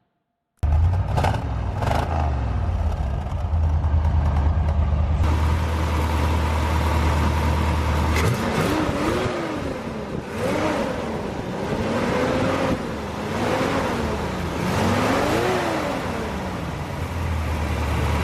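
1970 Corvette Stingray's 454 big-block V8 running steadily, then revved up and let back down several times in a row.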